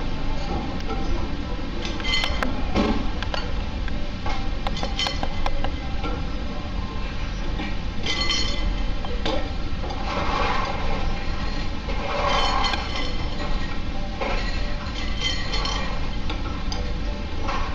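Repeated light clinks of chopsticks against a porcelain bowl of ice water and small plates, as pieces of hot sugar-coated banana are dipped to harden the coating and set down.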